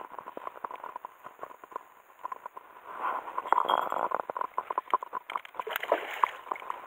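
Water splashing and gurgling, with rapid irregular clicks and crackles that grow busier about three seconds in and again near the end.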